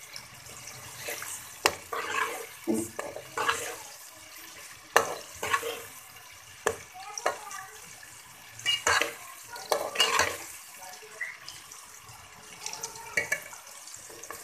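A ladle stirring sliced onions frying in oil in a metal pot: irregular scrapes and knocks of the ladle against the pot over a faint sizzle.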